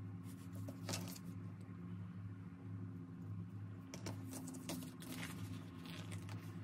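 Faint taps, clicks and rustles of fingers and nails handling a plastic lighter while pressing a printed image onto it, the sharpest about a second in and about four seconds in, over a steady low hum.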